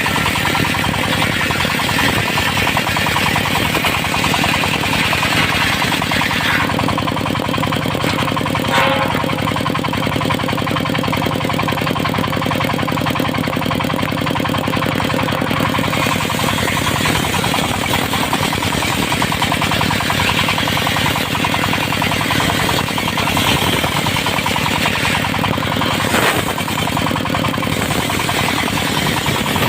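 Engine-driven circular sawmill running, its engine chugging with a fast steady pulse and a hiss from the saw; the hiss drops for several seconds about a third of the way in, with a couple of brief sharp clicks.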